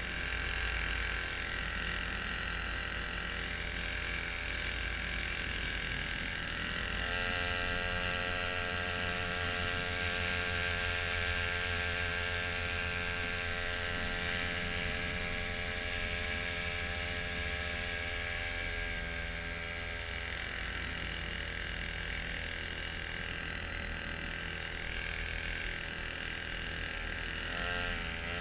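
Small motor on a homemade motorized kayak running steadily under way. A higher whine comes in about a quarter of the way through, fades out about two-thirds in, and returns just at the end.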